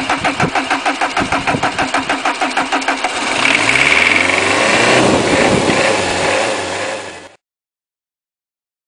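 Peugeot 306 1.9 four-cylinder turbo diesel being cranked by the starter, with even pulses at about five a second. About three seconds in it catches and runs, louder and steady, until the sound cuts off suddenly.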